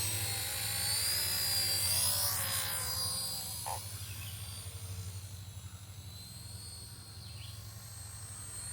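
Radio-controlled helicopter in flight, its motor and rotor giving a high whine that shifts up and down in pitch over a steady low hum. It grows quieter about halfway through.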